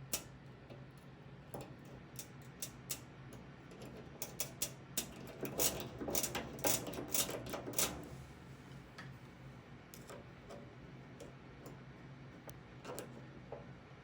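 Small metal tools clicking and scraping in a desk drawer lock's keyway as an improvised pick is worked against the pins. The clicks come in quick runs, densest and loudest in the middle.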